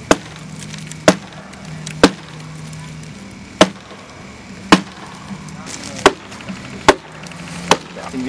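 Axe chopping wood: eight sharp strikes, about one a second.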